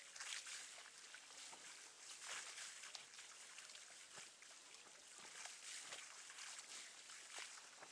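Small sea waves lapping and splashing against rocks at the water's edge, faint, with irregular little splashes over a steady hiss.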